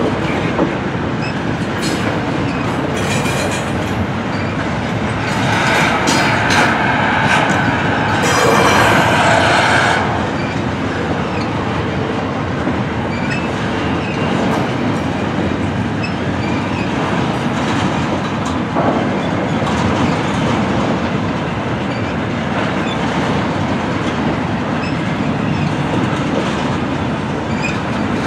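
Double-stack intermodal freight cars rolling past, a steady rumble of steel wheels on rail with clickety-clack from the rail joints. The noise grows louder and harsher for a few seconds starting about five seconds in, then settles back to a steady roll.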